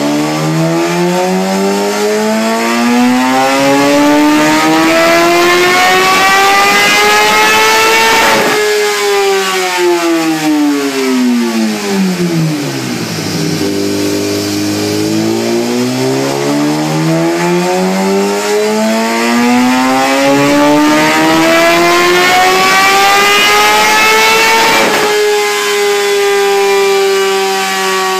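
2011 Kawasaki ZX10R's inline-four engine making two long full-throttle dyno pulls. Each time the pitch climbs steadily for about eight to twelve seconds, then falls away sharply as the revs drop. Near the end it holds a steady lower pitch.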